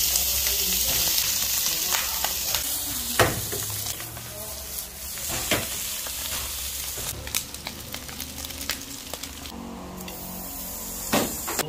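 Chopped bopis (pork lung and heart) frying in hot oil in a nonstick pan: a steady, loud sizzle, strongest at first and slowly easing, with spatula scrapes and taps every few seconds. About ten seconds in the sizzle drops away and the sound changes.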